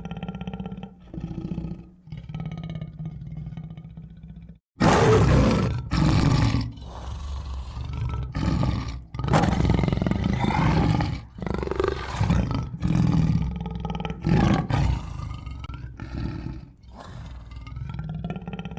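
Tiger growling low, then, after a brief break, a series of loud roars one to two seconds long in quick succession, fading back to lower growls near the end.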